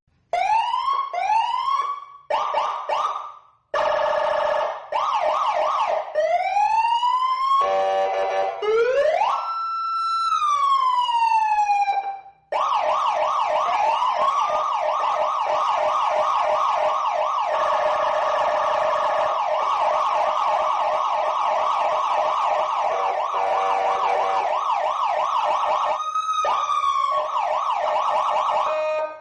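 Electronic emergency-vehicle siren running through several patterns: a few rising whoops, short stretches of fast yelp, a long wail that rises, holds and falls about ten seconds in, then a steady fast yelp for most of the rest, with one brief whoop near the end.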